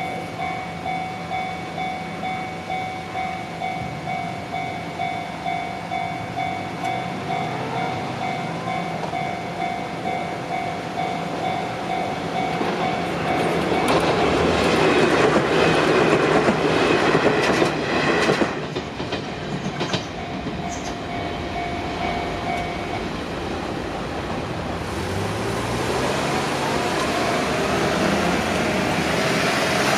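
Level-crossing warning bell ringing in a steady electronic ding, a little under twice a second. About halfway through, an electric train passes over the crossing with loud wheel clatter for about six seconds, and the bell stops a few seconds after it has gone. Near the end an engine speeds up, rising in pitch.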